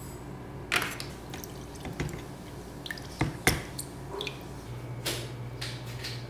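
Water dripping and splashing in a plastic tub as a small model-car part held in pliers is dipped and lifted: a handful of separate drips and splashes, the sharpest about three and a half seconds in.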